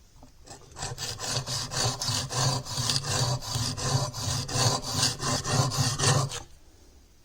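Chisel bevel, clamped in a roller honing guide, rubbed back and forth on a wet sharpening stone: a steady run of quick scraping strokes, roughly three a second, that stops about six and a half seconds in.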